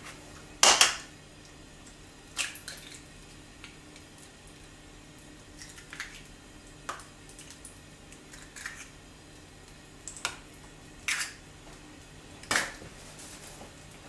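Eggs being cracked and separated: about eight short, sharp taps and clicks of eggshell against a bowl, a second or two apart, the loudest about a second in. A faint steady hum runs underneath.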